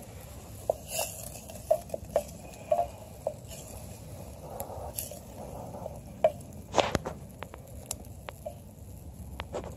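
A wooden spoon stirs thick chili in a metal camp pot, making irregular knocks and scrapes against the pot. A wood campfire crackles beneath it, and the loudest knocks come a little past the middle.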